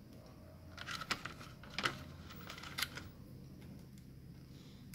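A few light clicks and taps, about one, two and three seconds in, from a gel blaster's motor and wiring being handled and seated in its open plastic housing.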